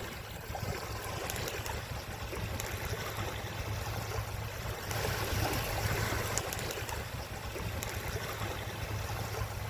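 Small sea waves lapping gently at the shore, with wind blowing across the microphone as a steady low rumble.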